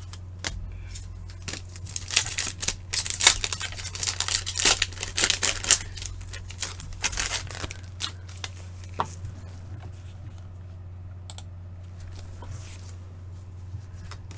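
A trading-card pack wrapper being torn open and crinkled, a dense crackling from about two to six seconds in, then scattered light clicks and rustles as the cards are handled.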